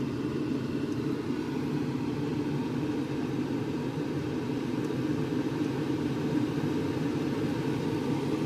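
Car air-conditioning blower fan running steadily at high speed, an even rush of air, being tested on a freshly repaired fan-speed switch panel.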